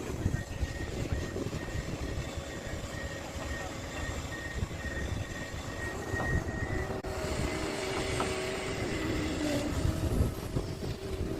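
Large Komatsu PC650LC hydraulic excavator's diesel engine and hydraulics running with a dense low rumble. A high, evenly pulsing beep sounds through the first half; after an abrupt change about seven seconds in, a steadier whine rides over the rumble.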